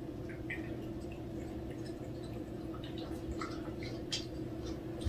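A cat licking a liquid treat (churu) from a squeeze tube: faint, scattered wet smacking clicks, over a steady low hum.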